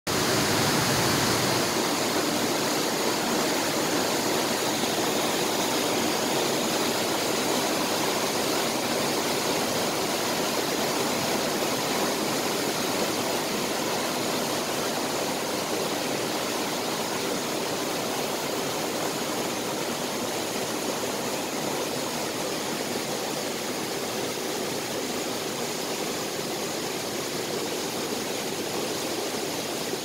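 Small waterfall cascading over rocks into a pool: a steady rush of falling water, easing slightly in loudness over the stretch.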